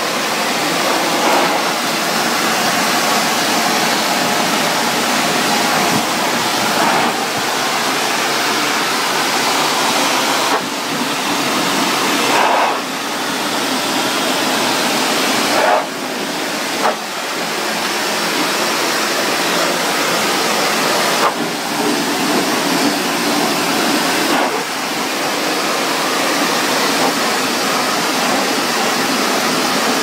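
Pressure washer jet spraying water against the metal fins and frame of an air-conditioning condenser coil: a loud, steady hiss of spray that dips briefly about five times.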